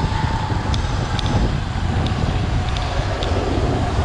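Wind buffeting the microphone over steady road-traffic noise, with a faint steady whine that drops slightly in pitch.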